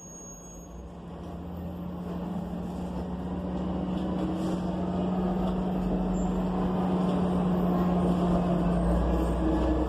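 Cummins Westport ISL G natural-gas engine of an ENC EZ Rider II transit bus running, heard from inside the bus: a steady low engine drone with rumble. It swells over the first few seconds and then holds steady, with a slight rise in pitch about two seconds in.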